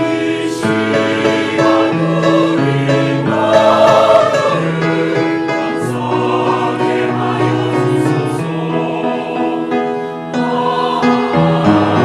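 Church choir singing a hymn in Korean, in held chords that change every second or two.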